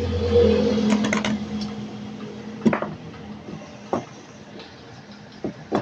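A steady electric motor hum switches off about half a second in, and a fainter tone dies away over the next two seconds. A few sharp clicks and knocks of tools and metal parts being handled follow.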